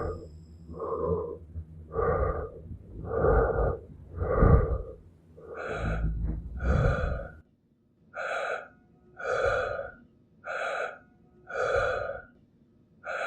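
A person's heavy, rhythmic breathing, one breath about every second. A low rumble runs under the breaths until it cuts off suddenly about seven seconds in, leaving the breathing alone.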